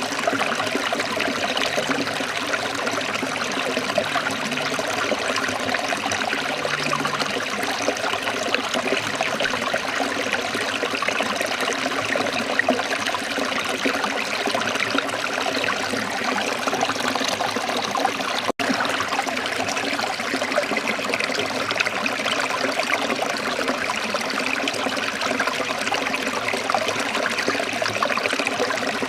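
Running water, a steady, even rush and trickle, with a split-second gap about two-thirds of the way through.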